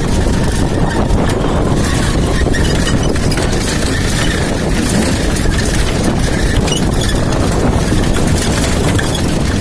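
Off-road vehicle running on a rough dirt track: a loud, steady engine and driving rumble.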